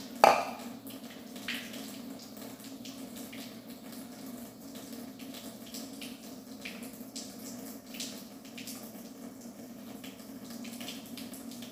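A kitchen faucet runs steadily into a plastic tub, left on while the water warms up to hot. A single sharp knock just after the start is the loudest sound.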